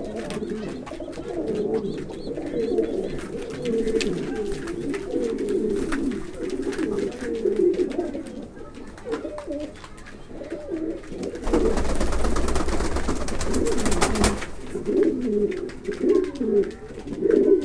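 A flock of pouter pigeons cooing, many low coos overlapping and wavering in pitch. About eleven seconds in, a loud rustling noise lasts about three seconds.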